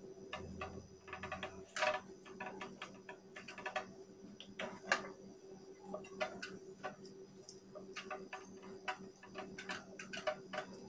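Irregular clicks and taps of hands handling the rubber hose and fittings on the head of a suction machine's diaphragm vacuum pump, over a faint steady hum.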